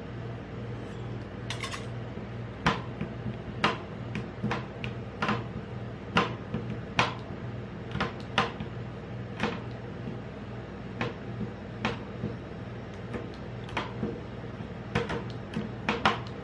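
Metal ice cream spatulas chopping a chocolate bar on a stainless-steel cold plate. The blades strike the plate in sharp, irregular taps, starting a few seconds in at about one a second, with a quick run of taps near the end. Under the taps runs the steady hum of the rolled ice cream machine.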